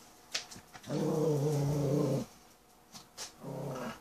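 A small dog growling twice: one long, steady growl, then a shorter one, with a few sharp clicks just before the first.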